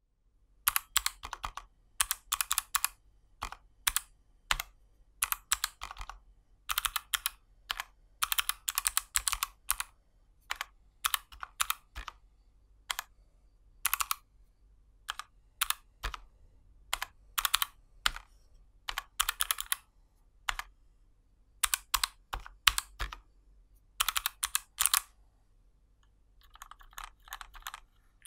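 Typing on a Tentaku mechanical-switch calculator with GMK keycaps over a mix of lubed Gateron Brown and clicky Kailh Box White switches: sharp key clacks in short quick runs with brief pauses between them. After a pause near the end, a softer run of keystrokes follows.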